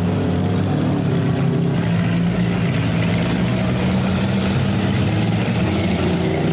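Demolition derby cars' engines running together at a steady speed, loud and unbroken.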